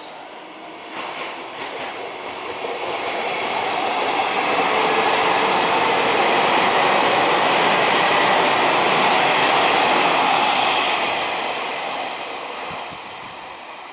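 Keio Inokashira Line 1000-series electric train passing close by. Its rumble swells, peaks in the middle and fades near the end, with groups of sharp wheel clicks over the rail joints about once a second and a thin high whine while it is closest.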